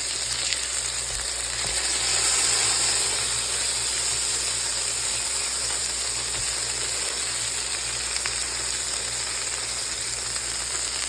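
Beef burger patties sizzling steadily in a hot frying pan, a little louder about two seconds in.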